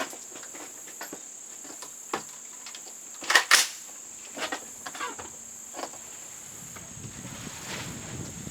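Crickets chirring in a steady high-pitched drone, with scattered small clicks and knocks and two sharper clacks close together about three and a half seconds in.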